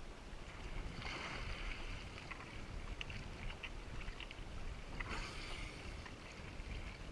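Choppy seawater sloshing and lapping at a camera held at the water's surface, with a low rumble throughout. There are splashes about a second in and again about five seconds in, and small drips and clicks between them.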